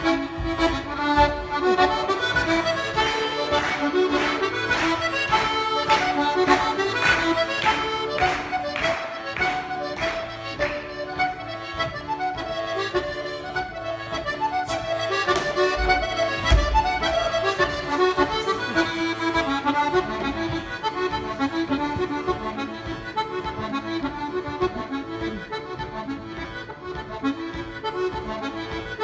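Accordion playing a lively halling dance tune with a steady rhythmic pulse. A couple of deep thumps on the wooden stage floor come a little past halfway.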